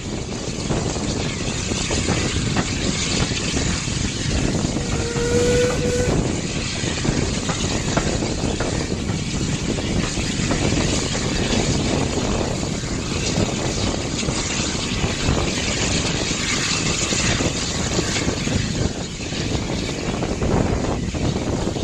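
Steady wind and rumbling running noise of a moving steam-hauled train, heard at an open carriage window. A brief whistle note sounds about five seconds in.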